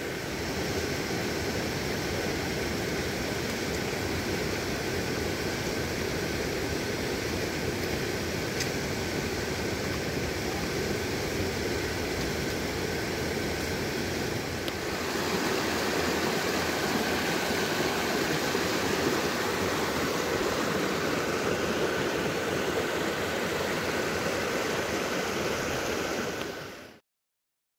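Steady rushing of a mountain creek tumbling over boulders. It grows a little louder about halfway through and cuts off abruptly just before the end.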